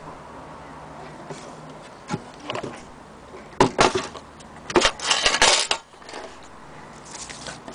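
Knocks and clattering of the antique Willcox & Gibbs sewing machine's wooden cover being handled and turned over. There are a few light knocks about two seconds in, then a louder run of clattering from about three and a half to nearly six seconds in.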